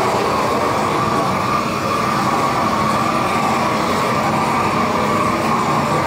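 Propane torch burning with a steady, even rushing hiss as its flame is played over the underside of the roof boards to char them.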